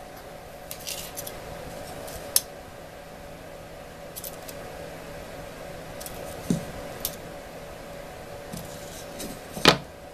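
Steel tape measure being drawn out and handled against an MDF part: scattered light metallic clicks and scrapes, with one louder knock near the end. A steady hum runs underneath.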